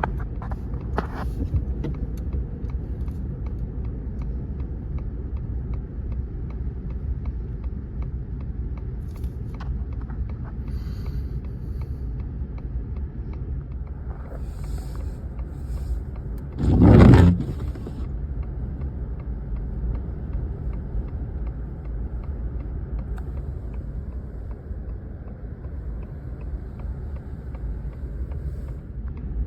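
Steady low rumble inside a vehicle stopped in traffic with its engine running. About seventeen seconds in there is one brief, loud burst of noise.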